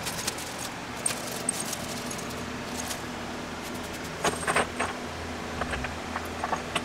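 Small metal parts clinking and jingling as they are handled: scattered light clinks, with a busier run of them a little past the middle and a few more near the end, over a steady low hum.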